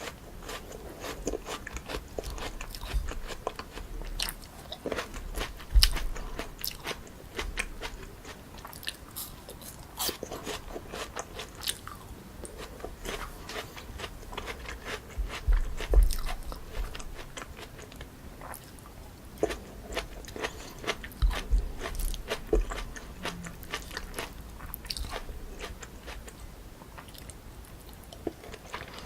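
Close-miked eating of a bowl of spicy chewy jjolmyeon noodles mixed with crunchy cucumber and apple: a run of small crisp crunches and wet chewing clicks, with a few heavier bites standing out about 6, 16 and 22 seconds in.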